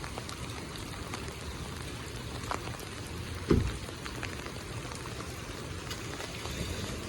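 Heavy rain falling steadily, with scattered sharp ticks of drops striking close by. A single low thump about three and a half seconds in is the loudest sound.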